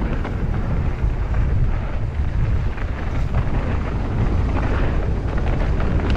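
Low, steady wind rumble buffeting a helmet-mounted camera's microphone, with faint rattles and ticks from a mountain bike riding over the trail.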